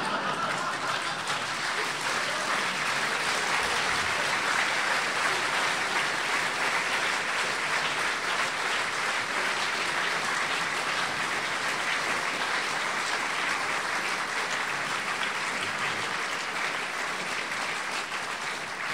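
Audience applauding: a long, steady round of clapping that eases off slightly near the end.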